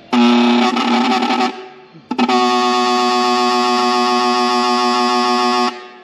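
Cheap electric 'train horn' powered from a battery charger's clamps, sounding two blasts: a short one of about a second and a half, then a longer steady one of about three and a half seconds. It gives a single buzzy tone, nothing like a real air train horn.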